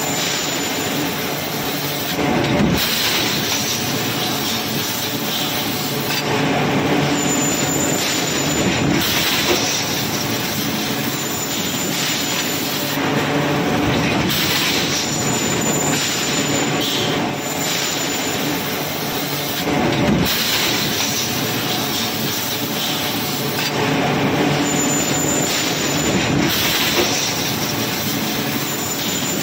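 Hot-forging press shop floor: a steady, loud mechanical din of the press and its surroundings as red-hot stock is worked in the dies, with a few louder knocks along the way.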